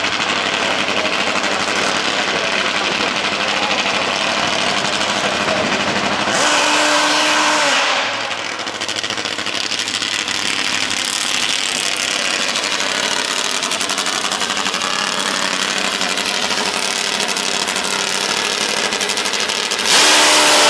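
Car engines running with a rapid, rattling beat, and two brief louder stretches with a held note, about six seconds in and near the end.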